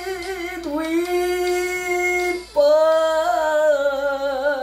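A man's singing voice holding two long wordless notes of a ballad melody, the second note starting about two and a half seconds in and wavering in a vibrato.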